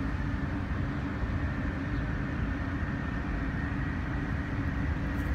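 Antonov An-124's four Progress D-18T turbofan engines at takeoff power as the freighter begins its takeoff roll: a steady rumble with a thin high whine above it.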